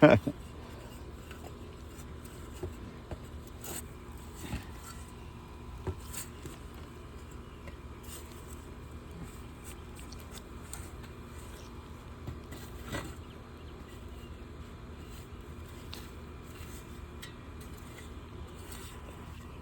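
Soft scraping and rustling of hands and a tool working through garden soil while digging up sweet potatoes, with scattered small knocks and clicks; a sharp knock right at the start.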